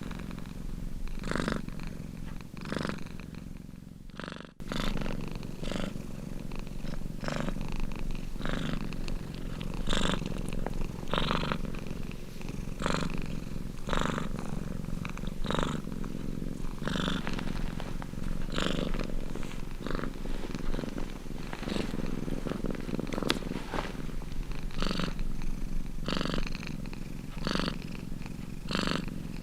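Domestic cat purring, the purr swelling with each breath about every second and a half, with a brief dropout about four seconds in.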